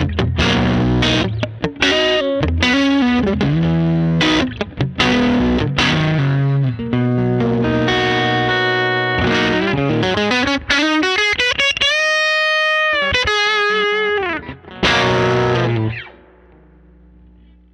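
Stratocaster played through a hand-wired '64 Fender Princeton Reverb tube amp turned up high and breaking up into distortion, through its 10-inch Alnico Jensen speaker. Strummed chords give way to held single notes, one gliding up in pitch and back down, and a final chord rings out and fades near the end.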